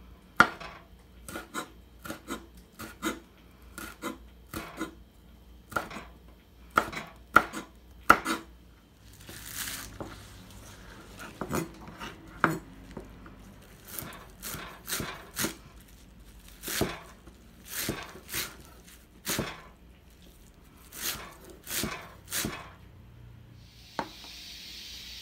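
Kitchen knife chopping red chili pepper and then garlic chives on a wooden cutting board: sharp knocks of the blade on the board, one to two a second at an uneven pace, with a brief rustle of the chives about ten seconds in. A steady hiss comes in near the end.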